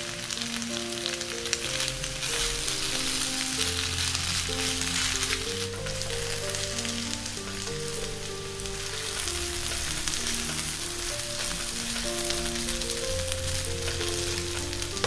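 Sliced sausages and thin potato sticks sizzling steadily in oil in a frying pan, with background music playing a melody of short notes.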